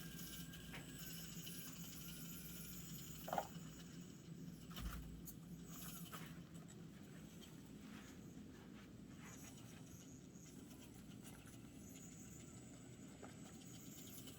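Faint whir of an Axial SCX24 micro RC crawler's small electric motor and drivetrain as it crawls over a twisting obstacle course. Its tires scrape along, with a few short knocks as it climbs, the clearest about three seconds in.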